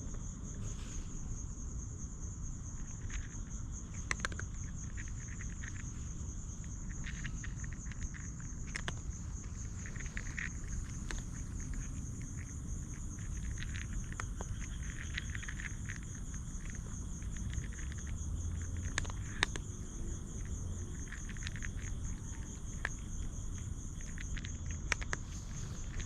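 Insects trilling in a continuous, high, slightly pulsing chorus, over a low steady rumble, with scattered small rustles and ticks.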